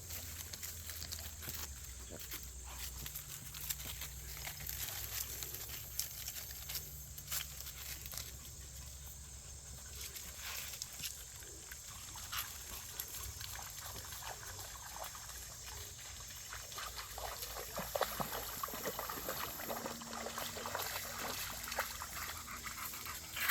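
Excited small dogs moving about close by, with scattered short clicks and rustles over a steady low rumble.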